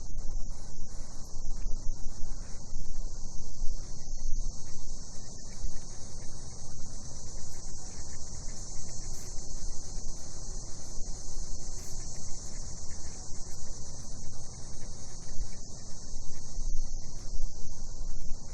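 A chorus of cicadas droning steadily in one high, unbroken band, with a low, uneven rumble underneath.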